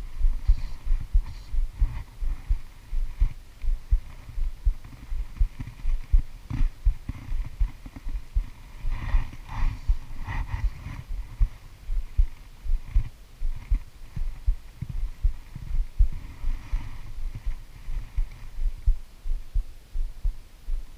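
Irregular low thumps and rumble on the action camera's microphone, several a second, with no voice over them.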